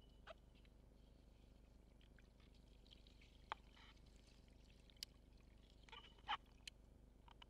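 Near silence underwater: a low steady hum with a few scattered sharp clicks and one slightly louder knock about six seconds in.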